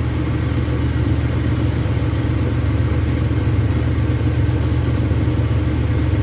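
A steady, unchanging low mechanical hum from a running machine.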